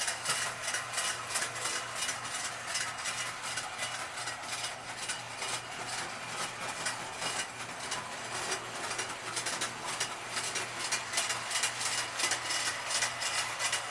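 Electric toy train, a reissue of Lionel's Mickey Mouse circus train, running around its track: a steady quick clicking of the wheels and cars over the rails, over an even motor hum.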